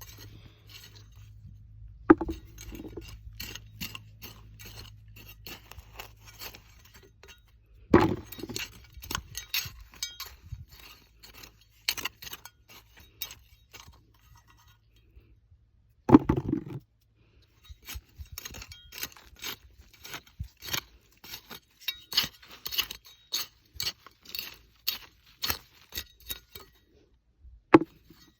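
Potatoes and garden soil being dug up and handled: a run of small scrapes, crunches and clinks, with a louder knock four times.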